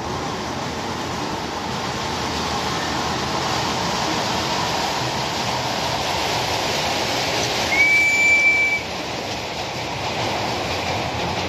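Miniature ride-on train running past across a steel girder bridge, its noise swelling as it comes close, with one steady whistle blast of about a second from the locomotive about eight seconds in.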